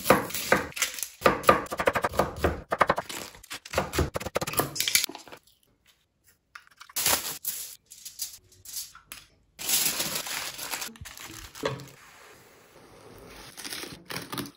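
Kitchen prep sounds in quick succession: a knife chopping on a wooden cutting board with rapid knocks, then, after a short pause, aluminium foil rustling and crinkling as it is handled and folded.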